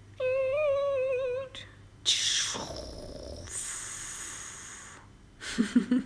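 A woman making silly vocal noises. First a high, wavering hummed note of about a second, then a falling whoosh and a long hissing 'sss', with a few short voiced sounds near the end.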